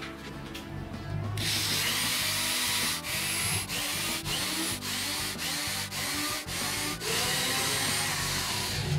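Corded electric drill boring into a wooden board, the bit cutting the wood from about a second and a half in, with short breaks every half second or so as the drill eases off and bites again.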